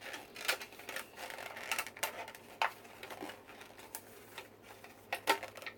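Thin plastic candy-kit tray being bent and twisted by hand along its serrated joins, giving scattered sharp clicks and crackles; it does not snap apart.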